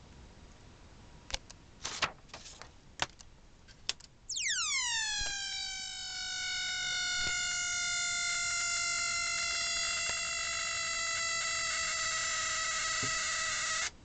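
A few clicks, then a home-built transistor blocking-oscillator circuit (a Darlington pair and a small mains transformer driving a small loudspeaker) sounding its electronic screaming-bird imitation. The shrill tone starts about four seconds in, dives from a very high pitch to a lower steady tone within a second or two, holds, and cuts off suddenly near the end.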